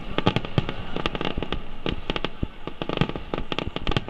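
Fireworks display: aerial shells bursting in a dense, irregular run of sharp bangs, several a second.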